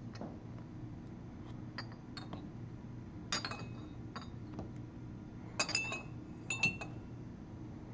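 Small espresso demitasse cups clinking against each other as they are handled: a few sharp, ringing clinks in small clusters, the loudest about three and a half and six seconds in, over a low steady hum.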